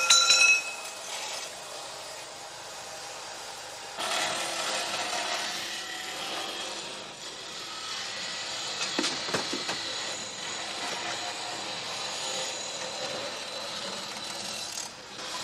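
Metal-workshop din: power tools grinding and working metal in a steady noisy rasp, stepping up louder about four seconds in. A brief metallic ring at the very start.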